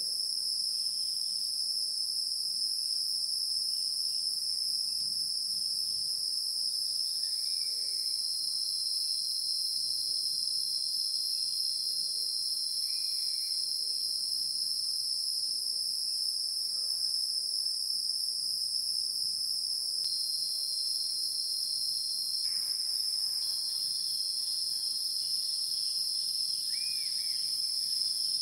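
A steady, high-pitched chorus of insects trilling without a break, with a few faint chirps now and then.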